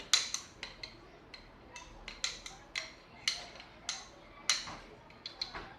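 A spoon stirring a dip of yogurt and blue cheese, clinking sharply and irregularly against the side of the bowl about two to three times a second.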